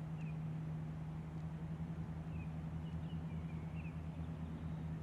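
A steady low hum with several faint, short bird chirps scattered over it.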